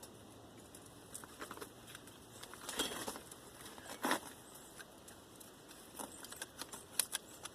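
Copper windings being worked out of the slots of an old electric motor armature: scattered faint clicks and scrapes of metal on metal, the sharpest about three and four seconds in and a few more near the end.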